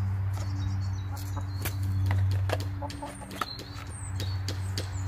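Chickens clucking, with scattered light clicks over a low steady hum.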